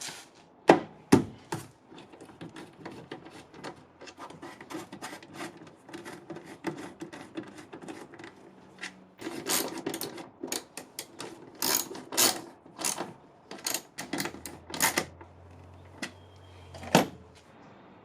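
Ratchet wrench clicking as it drives the tail light housing's two 8mm bolts, mixed with sharp knocks of the plastic housing being set into place. Two loud knocks come about a second in, and the clicking grows louder about halfway through.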